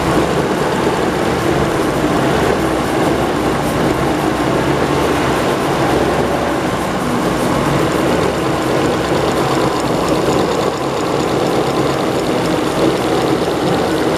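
Homebuilt straight-sixteen-cylinder engine running steadily at idle.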